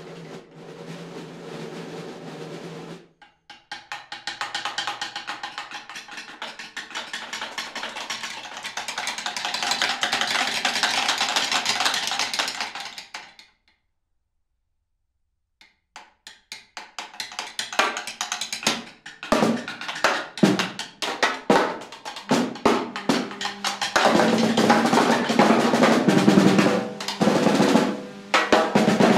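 Ensemble of eight snare drums with electronic sounds played through speakers under the drums. A steady buzzing tone opens, then dense snare rolls build to a loud peak and stop dead for about two seconds. The strokes return as scattered hits and thicken again into loud, fast rolls.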